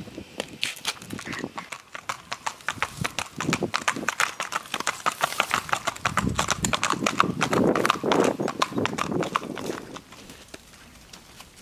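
Hooves of a Missouri Fox Trotter gelding clip-clopping on a hard road as it is ridden at a quick, even gait. The hoofbeats fade near the end as the horse moves onto a soft, leaf-covered trail.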